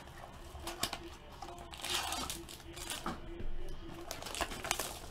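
Plastic wrapping on a pack of trading cards crinkling and crackling in the hands as it is opened, with a louder rustle about two seconds in and again past the middle. Faint music plays underneath.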